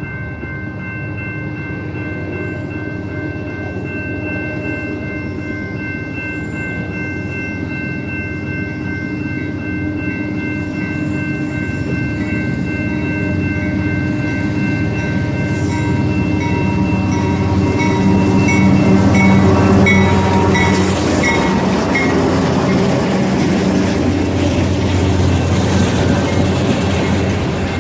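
Crossing bell ringing steadily at a gated railroad crossing while a Canadian Pacific freight train approaches. The train's rumble builds to its loudest about two-thirds of the way through as the locomotive passes, then gives way to the rolling noise of autorack cars going over the crossing.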